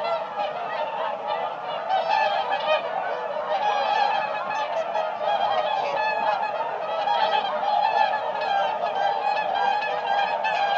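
A flock of whooper swans calling continuously, many overlapping trumpeting honks.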